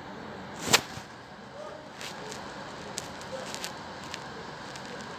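A single sharp knock just under a second in, followed by several lighter clicks and taps over steady background noise.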